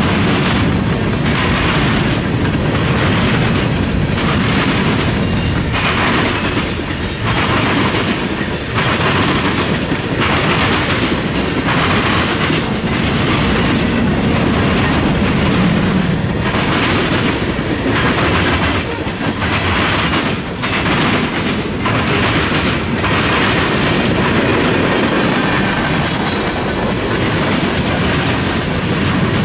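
Freight cars of a long train (tank cars, covered hoppers and boxcars) rolling steadily past close by. Loud continuous rumble with a repeated clickety-clack about once a second as the wheel sets cross rail joints.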